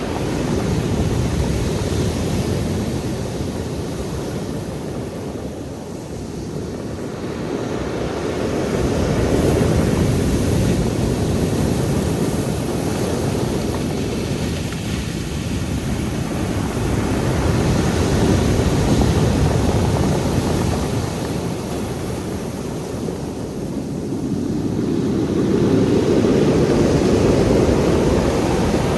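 Sea waves breaking and washing on the shore, in a steady rushing noise that swells and fades in slow surges about every eight seconds.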